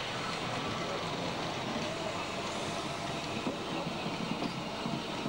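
Px48 narrow-gauge steam locomotive moving along the track, a steady noisy rumble with no clear exhaust beat, with faint voices near the end.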